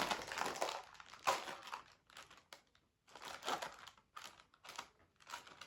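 Plastic snack packet crinkling in several short bursts as it is handled.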